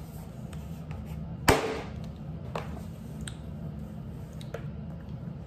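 Handling sounds during an unboxing: one sharp knock about a second and a half in, then a few faint clicks, over a steady low hum.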